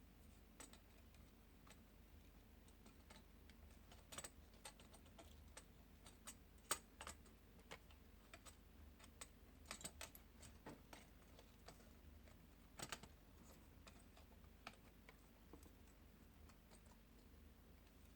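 Faint, irregular small clicks and taps of laptop parts being handled and fitted, the loudest about six and a half seconds in, with a cluster around ten seconds and another near thirteen.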